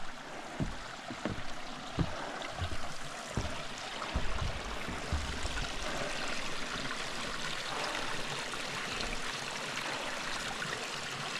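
Mountain stream rushing over rocks as a steady noise that grows fuller about halfway through. Low thuds come about every two-thirds of a second in the first half.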